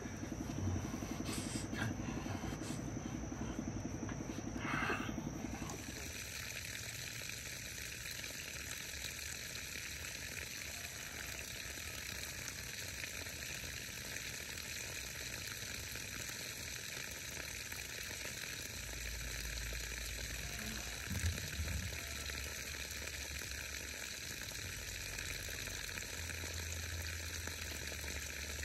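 Steady outdoor garden ambience: an even hiss that settles in about six seconds in, after a slightly louder, humming background at the start. A faint low rumble comes and goes in the second half.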